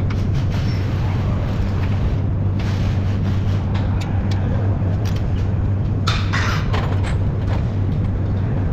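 Steady low machine hum, unbroken throughout, with a few brief noisy scrapes and rustles.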